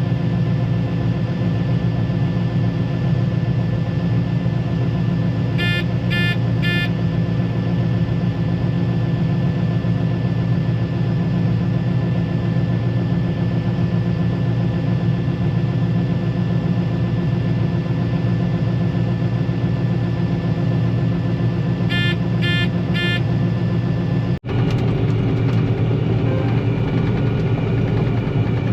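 John Deere combine running steadily while harvesting soybeans, heard from inside the cab as a constant drone. Two sets of three short electronic beeps sound over it, about 6 seconds in and again about 22 seconds in.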